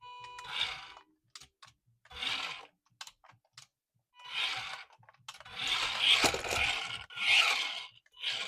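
Handling noise from packaging or plastic toy parts: about six short bursts of crinkling and scraping, with small clicks in between.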